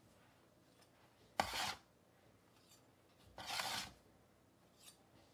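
Baked cookies being lifted off a baking sheet and set on a wire cooling rack: two short scraping rustles, about a second and a half in and again about two seconds later, then a faint tick near the end.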